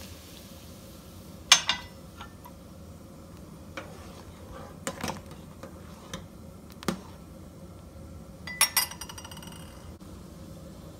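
A metal spoon and kitchenware clinking against an enamel saucepan while starch is stirred into boiling kissel: a few sharp clinks, the loudest about one and a half seconds in, and a quick ringing run of clinks near the end.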